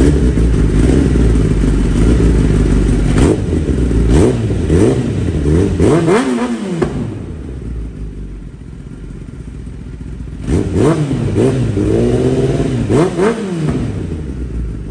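Kawasaki Ninja ZX-10R inline-four engine running through a freshly installed Graves titanium full-system exhaust, revved in quick blips that rise and fall. A cluster of blips comes in the first half, then a few seconds settled near idle, then another run of blips.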